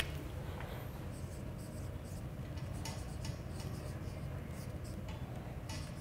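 Marker pen writing on a whiteboard: a run of short stroke sounds over a steady low room hum.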